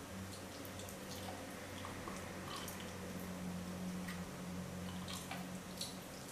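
Wet chewing and biting of raw lamb heart: scattered small moist clicks and smacks, over a steady low hum.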